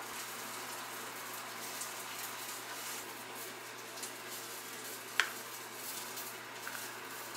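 Low steady hiss with soft handling sounds as side dishes are packed into plastic food containers, and one light clink about five seconds in.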